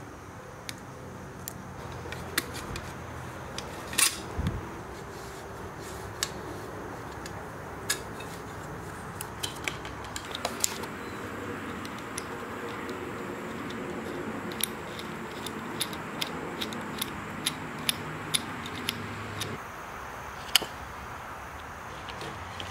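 Small, sharp metallic clicks and taps from handling a bicycle brake cable at the brake lever, scattered irregularly over a steady low hum.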